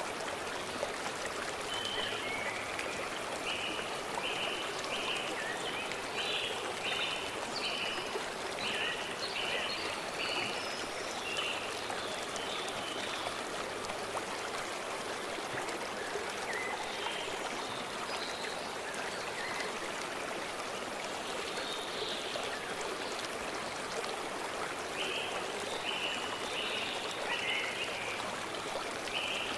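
Stream flowing steadily over rocks, with a bird singing a run of short repeated high notes from about two seconds in for several seconds, and again near the end.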